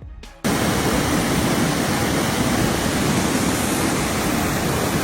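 Background music cuts off about half a second in, replaced by a loud, steady rush of fast-flowing floodwater.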